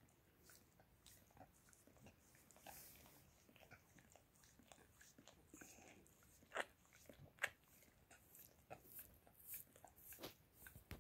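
Shiba Inu licking and nibbling at a person's bare toes: soft wet licks and small mouth clicks, with two sharper clicks a little past halfway.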